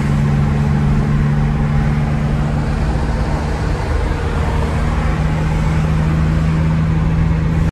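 Steady engine drone with tyre and road noise inside the cabin of a pickup cruising on a highway.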